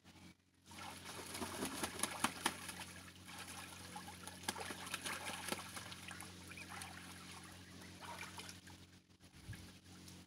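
Domestic geese bathing in a shallow muddy pond, splashing and sloshing the water with many small splashes. The splashing starts about a second in and dies down near the end.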